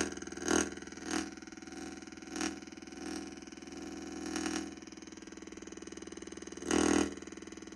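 Buzzing electronic drone from a homemade transistor circuit picking up fields through a spiral copper-coil antenna, played out loud as audio. It swells several times, most strongly near the end, as a hand moves close to the coil.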